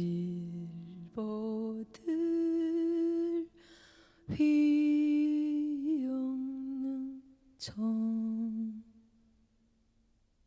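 A woman singing alone in a Korean traditional vocal style, holding about five long notes that step and slide between pitches, with a short dip in pitch partway through the longest. A sharp stroke opens two of the phrases, and the last note dies away shortly before the end.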